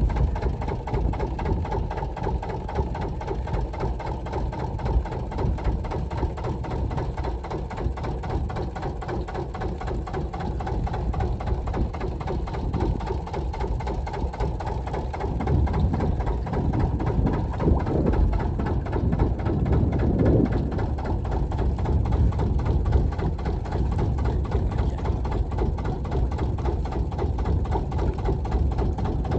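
Small boat's outboard motor running steadily at low speed, a fast even pulsing over a deep rumble, with its pitch wavering a little around the middle.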